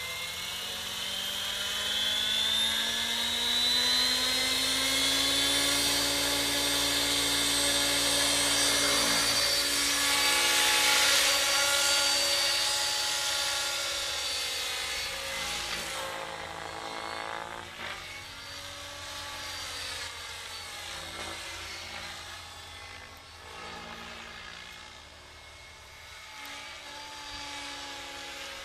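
Henseleit TDR electric RC helicopter, its brushless motor and rotor whining as it spools up, rising in pitch over the first few seconds, then holding steady. From about halfway on, the pitch swings up and down and the sound grows fainter as it flies about overhead.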